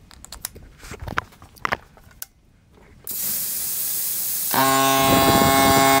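Plug and cable handling clicks and knocks, then about three seconds in a small electric air compressor starts with a loud steady hiss of air. About a second and a half later its motor comes up to full running with a louder humming drone on top of the hiss.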